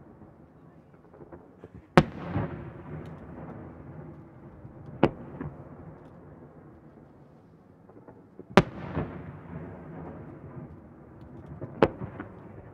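Aerial fireworks: four sharp bangs about three seconds apart, the second-loudest and loudest each followed by a long rolling echo.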